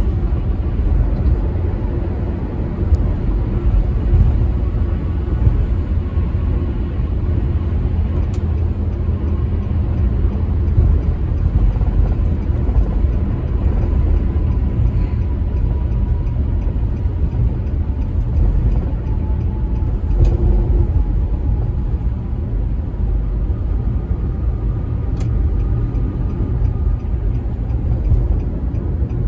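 Steady low rumble of tyres and engine heard from inside a car cruising on a motorway.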